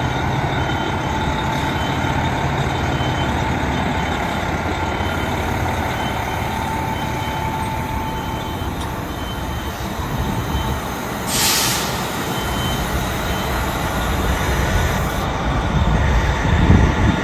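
Diesel fire truck backing into its station bay: the engine runs steadily while a reversing beeper repeats for the first several seconds. Air brakes give a short hiss about eleven seconds in, and the engine grows louder near the end.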